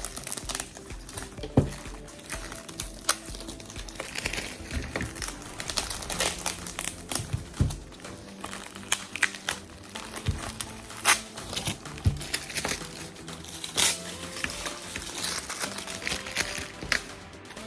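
Packaging crinkling and crackling irregularly as it is unwrapped by hand.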